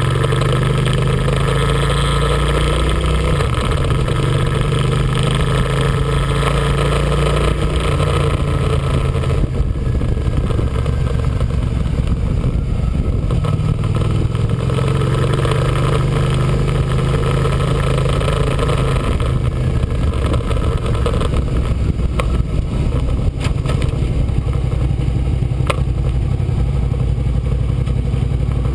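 Sport motorcycle engine heard from an onboard camera on a track lap, with steady wind noise. The engine note rises and falls with the throttle, then eases off over the last several seconds as the bike slows into the paddock.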